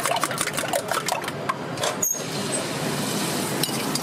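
Rapid metallic clinks of a spoon beating egg mixture in a steel tumbler. About two seconds in, egg batter is poured onto a hot oiled iron tawa and sizzles steadily.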